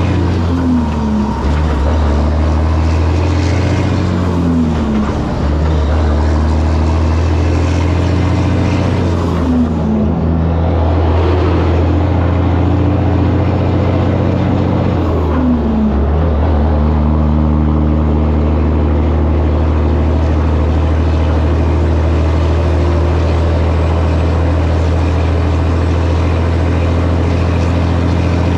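Diesel semi-truck engine running steadily under load. Its note shifts in pitch about four times in the first sixteen seconds, then holds steady.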